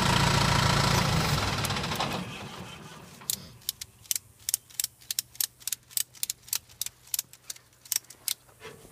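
An engine runs steadily, then dies away over the first three seconds. After that comes a regular run of sharp metallic clicks, two or three a second, from a ratchet strap being worked to tighten a tow strap on a stuck UTV's front bumper.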